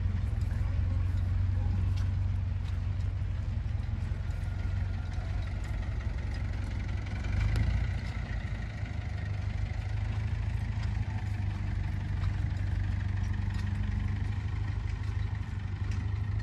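An engine idling steadily, a low even hum that does not change.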